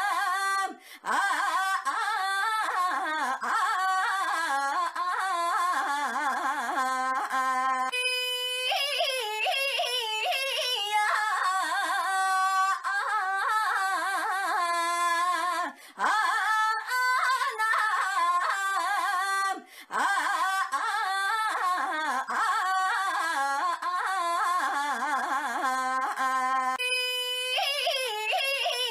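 A young woman's high voice drawing out the call "Ainya" again and again in a sing-song way, sliding up and down in pitch, almost without a break.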